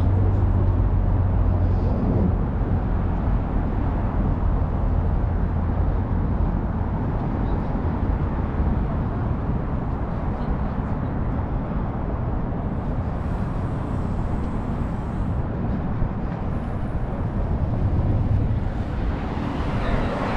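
Steady street traffic noise from cars driving past, with a low engine rumble that is heavier in the first few seconds and swells again near the end.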